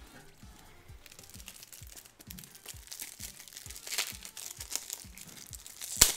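Plastic crinkling and rustling as a trading card is handled and slipped into a protective card sleeve, with scattered light clicks and one sharp click near the end.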